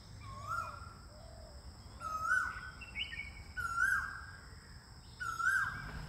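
Asian koel calling, one loud note repeated four times at intervals of about a second and a half. Each note rises, holds briefly, then falls away. Two steady high-pitched tones and a low rumble run underneath.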